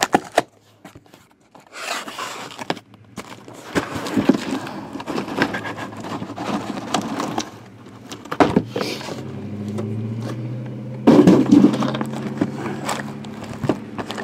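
A taped cardboard shipping case being opened: tape slit along the seam, flaps pulled back, and shrink-wrapped hobby boxes scraping and crinkling against each other and the cardboard. A low steady hum joins in past the middle, with the loudest handling noise a few seconds before the end.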